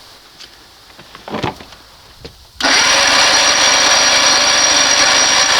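A few light handling clicks, then about two and a half seconds in the 1992 Johnson 60 hp outboard is spun over on its electric starter. It makes a loud, steady whir with a high whine, cranked for a timing-light check of the wide-open-throttle timing.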